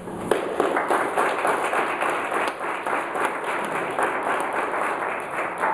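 Audience applauding, a dense patter of many hands clapping that starts abruptly just after the opening song ends.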